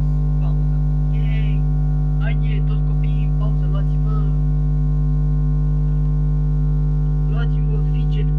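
Loud steady electrical mains hum, with faint brief sounds coming and going over it.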